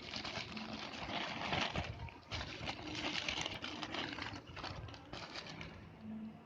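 Rustling and crinkling handling noise with many small irregular crackles, heaviest in the middle and easing off near the end.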